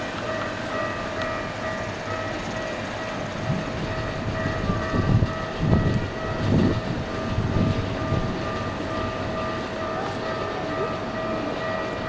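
Keikyu electric train at the depot: a steady electrical whine with several fixed pitches. From about four to eight seconds in there is a run of low thumps, about one a second, like wheels crossing rail joints.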